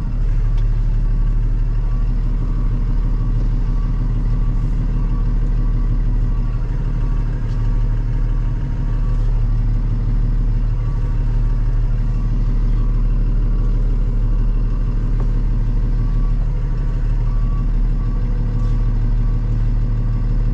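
Box truck engine idling steadily, heard from inside the cab, with a faint repeating beep from the truck's reverse alarm.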